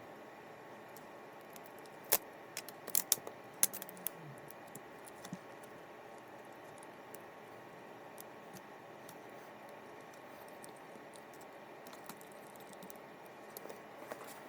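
Small hard clicks and taps of fishing-reel parts being handled during disassembly: a cluster about two to four seconds in, then a few fainter ones near the end, over a steady low hiss.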